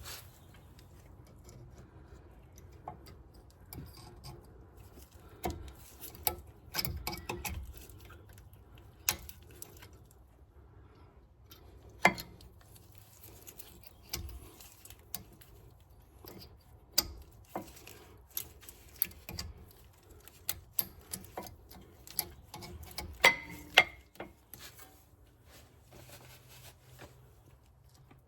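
Irregular metallic clicks and taps of brake pads being fitted into the clips of a front caliper bracket, with a few sharper knocks about twelve seconds in and twice more late on.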